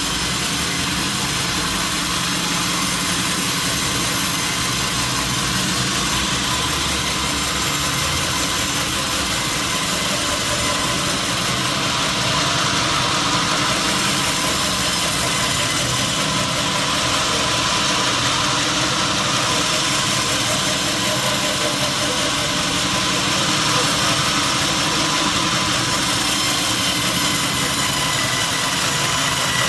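Sawmill machinery running steadily: an engine-driven saw with a constant low drone under a dense high hiss, no clear cut starting or stopping.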